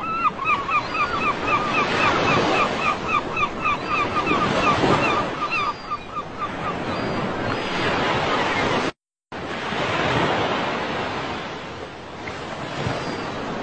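Ocean surf, a steady rush of waves washing and breaking on a beach. A rapid run of short high calls, about five a second, sounds over the first half. The sound cuts out completely for a split second about two-thirds through.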